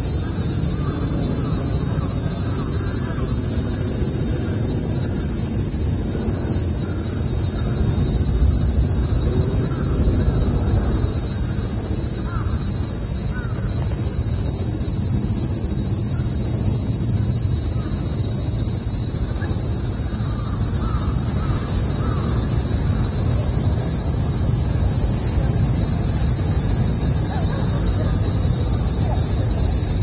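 A chorus of cicadas, a steady high-pitched buzz that does not let up, over a low rushing noise.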